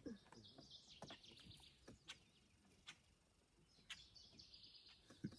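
Near silence with faint bird chirping and a few small, sharp clicks and taps scattered through it.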